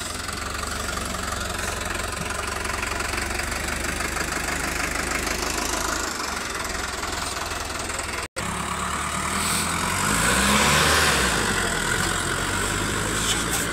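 Diesel tractor engine running steadily. The sound cuts out for a split second about eight seconds in, then gets louder around ten seconds in.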